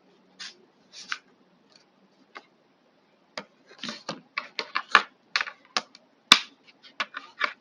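Plastic parts of a hair trimmer being handled and fitted together: irregular small clicks and short scrapes, sparse at first and coming thick and fast after about three seconds in, with the sharpest click about six seconds in.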